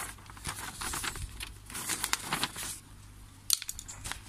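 Packaging being handled, rustling and crinkling irregularly for the first two to three seconds, then a single sharp click.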